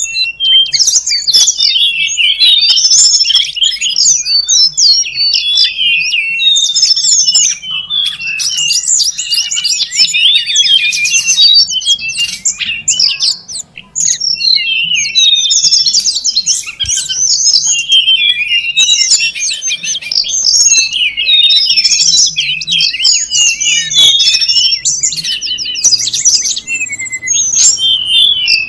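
Tledekan gunung (mountain flowerpecker) calls: dense, rapid, high-pitched chirps and twitters that overlap almost without pause, as from several excited birds at once, played as a bird-lure recording. A faint low hum sits underneath.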